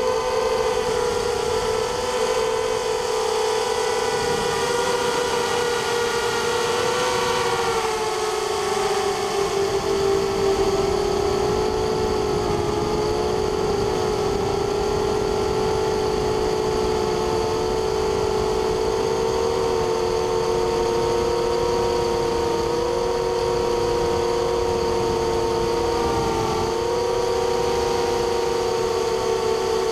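Small hexacopter's six 2300 kV brushless motors and propellers whining steadily in flight: several close tones at once, the pitch wavering and dipping briefly a couple of times as the throttle changes.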